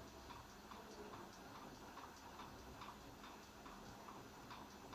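Near silence: low room tone with faint, regular ticking, about three ticks a second.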